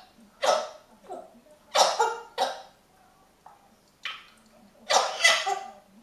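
African grey parrot giving a string of about five short, harsh, noisy bursts with pauses between them.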